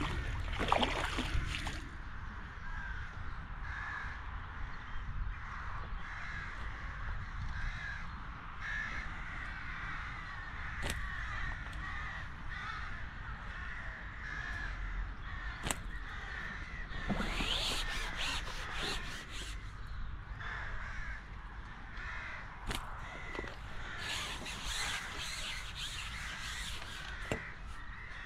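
Crows cawing repeatedly, over a low wind rumble on the microphone.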